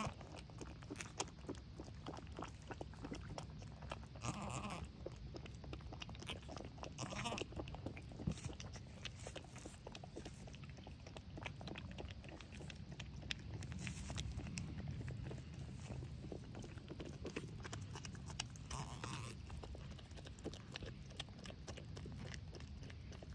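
Faint close sounds of goats with a newborn kid: a steady run of small clicks and rustles, with a few short soft calls about four, seven and nineteen seconds in.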